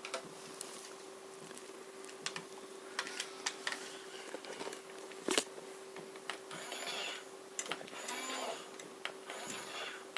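Scattered plastic clicks and rattles from a toy remote-control car being handled and its parts turned, over a steady low hum.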